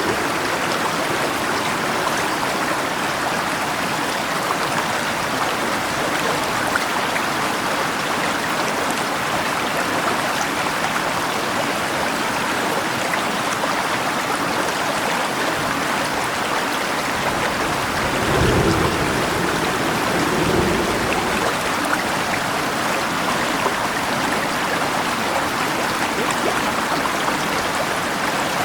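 Steady rushing of a flowing river mixed with falling rain. A brief deeper rumble swells up about two-thirds of the way through.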